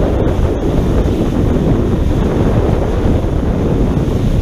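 Wind buffeting the microphone and water rushing past as a pontoon boat runs at speed across the lake, a steady noise heaviest in the low end.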